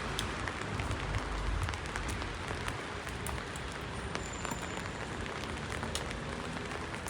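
Steady rain falling on hard surfaces, an even hiss with scattered individual drops ticking close by. A low rumble fades out in the first couple of seconds.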